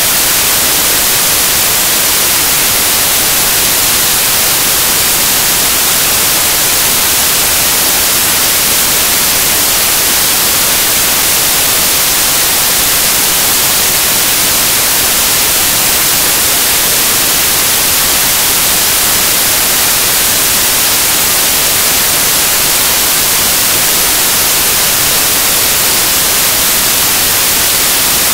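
Loud, steady static hiss like white noise, brightest in the high treble, with no change in pitch or level.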